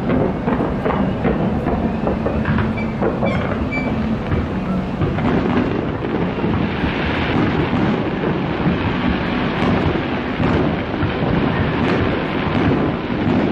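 Fireworks going off in a continuous barrage: many bangs and crackles run together into a steady rumble.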